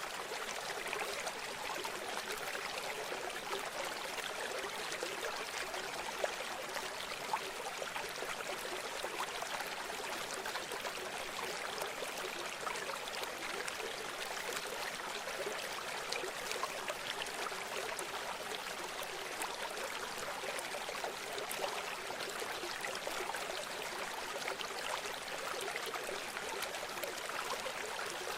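River water flowing and babbling steadily, a continuous rush with small splashes and trickles throughout.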